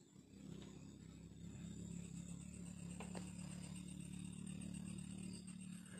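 Faint, steady low hum of a motor that builds up over the first second or two and then holds, with a thin high steady tone above it and a couple of faint clicks about halfway through.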